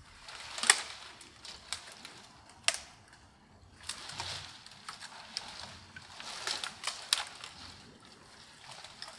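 Dry dead conifer twigs and branches snapping and crackling, with rustling brush and footfalls, as a person pushes through a dense thicket. A few sharp snaps stand out; the loudest comes under a second in.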